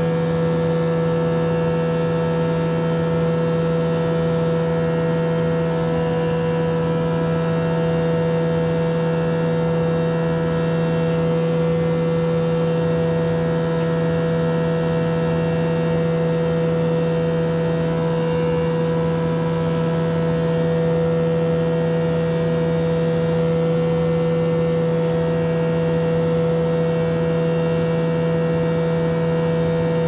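Steady machine hum that never changes, with a strong low drone and several higher steady tones over it.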